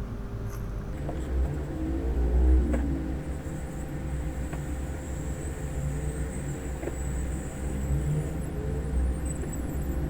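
Hot air rework station blowing, a steady low rumble with a faint whine, with a few light clicks as the replacement charging controller chip is soldered onto the laptop motherboard.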